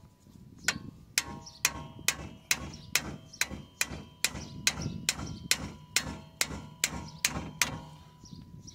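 Hammer blows at about two a second on a seized, rusted brake bolt, struck to loosen it. Each blow has a short metallic ring.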